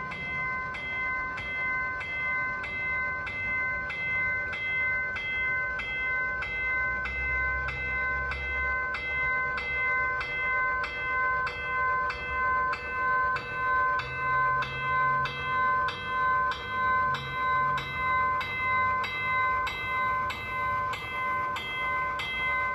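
HO-scale model train's Soundtraxx sound decoder ringing a diesel locomotive bell, evenly at about two strikes a second, over a low diesel engine rumble.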